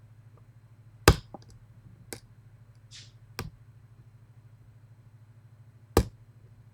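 Lock pick working the pins inside a Medeco lock: a few sharp metallic clicks at irregular intervals, the loudest about a second in and near the end, over a steady low hum.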